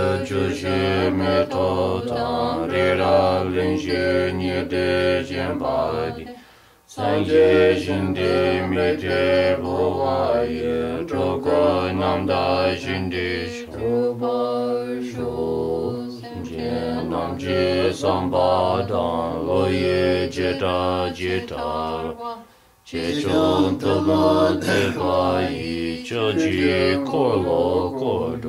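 Tibetan Buddhist prayers chanted in a steady, rhythmic recitation. The chant breaks off briefly twice, about 7 and 23 seconds in, then resumes.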